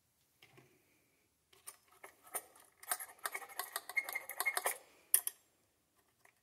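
Small hard items being handled on a workbench: a run of light clicks and clatters that thickens in the middle and ends with one sharper click.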